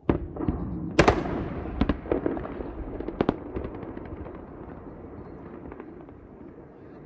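Explosive demolition of the Grain Power Station chimney: a sudden blast, then a string of sharp cracks, the loudest about a second in, over a rumble that slowly fades.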